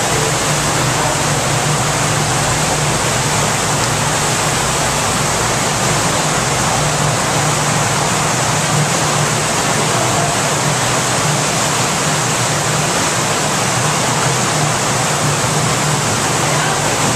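Steady rush of flowing water, even and unbroken, with a low hum underneath.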